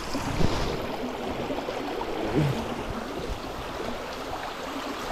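Small rocky stream running over stones close by, a steady rush of water, with a few soft knocks.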